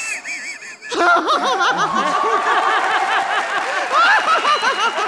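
A single high-pitched giggling laugh, then about a second in a studio audience breaks into loud laughter that carries on.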